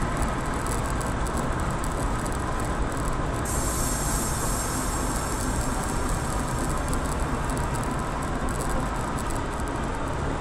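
Steady driving noise heard from inside a car's cabin: engine and tyre rumble with road hiss. A brighter hiss joins for several seconds in the middle.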